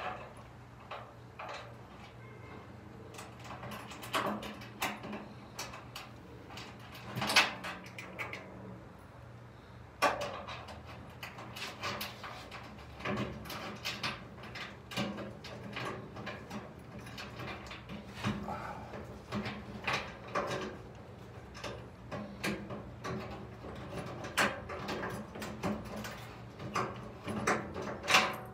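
Scattered light clicks, scrapes and knocks of hands threading a mounting bolt into the lower edge of a Mustang front fender, metal against sheet metal, with a louder knock about seven seconds in and another near the end. A steady low hum runs underneath.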